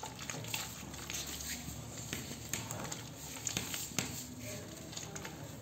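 Dry red clay being crumbled by hand, its crumbs and powder pattering into a steel bowl of wet clay slurry, with irregular small crunchy clicks throughout.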